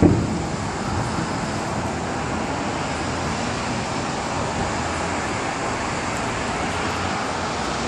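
Steady roar of distant road traffic, with a short thump right at the start.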